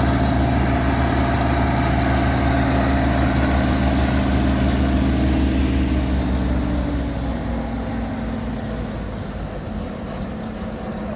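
A heavy farm machine's engine running steadily during corn harvest, its pitch and loudness sinking from about six seconds in and settling lower near the end.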